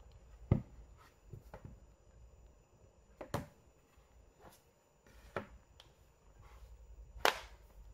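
Soft knocks and clicks of two foldable Samsung Galaxy phones being handled on a tabletop as one's hinge is tilted and both are picked up: about seven scattered taps, the sharpest about half a second in and another near the end.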